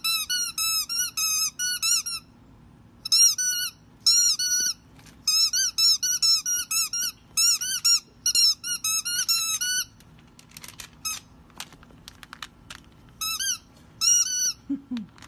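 A dachshund puppy biting a rubber chicken squeaky toy: quick runs of high squeaks, several a second, with short pauses between runs. After about ten seconds the squeaks thin out to a few clicks and one last short run.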